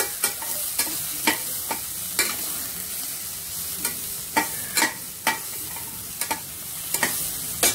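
Vegetables sautéing in a steel pot: a steady sizzle, with a spatula stirring them and repeatedly clicking and scraping against the pot.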